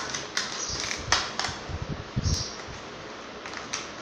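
Irregular small plastic clicks and knocks as pieces of a child's pink plastic toy makeup set are handled.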